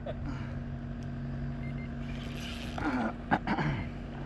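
A small boat motor on a fishing kayak hums steadily. About three seconds in there is a short flurry of clatter and falling squeals.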